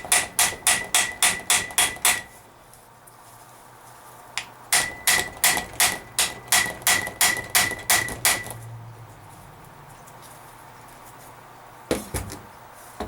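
Hammer blows ringing on steel: a quick run of strikes at about four a second, a pause, then a second, longer run, and two single knocks near the end. The blows are driving the old, broken U-joint out of the yoke of a 2003 Dodge Ram 3500 front axle shaft.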